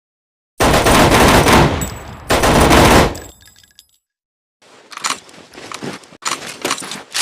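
MP18 submachine gun with a drum magazine firing two full-automatic bursts: a longer one of about a second and a quarter, then after a short gap a shorter one, trailing off in echo. Quieter sharp metallic clacks of weapon handling follow near the end.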